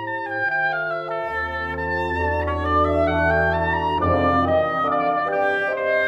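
A school wind band plays orchestral film music: a woodwind melody climbs step by step over sustained low notes, and the band's sound fills out about four seconds in.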